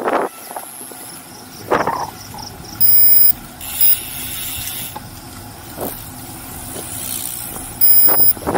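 Two loud, high electronic beeps about five seconds apart, each about half a second long, over faint wind noise.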